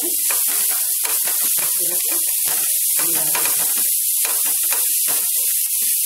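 Paneer and onion stuffing frying in oil in a non-stick pan with a steady sizzling hiss. A wooden spatula scrapes and knocks irregularly against the pan as the mixture is stirred.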